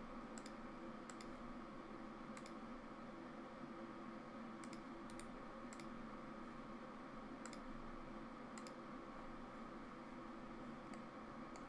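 Computer mouse clicking about a dozen times at irregular intervals, single sharp clicks mostly a second or more apart, over a faint steady hum.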